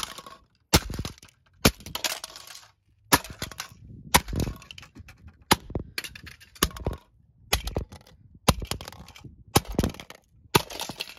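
A hammer striking hard plastic toy telephones on paving, about ten sharp cracking blows roughly a second apart, each followed by a short rattle of breaking plastic.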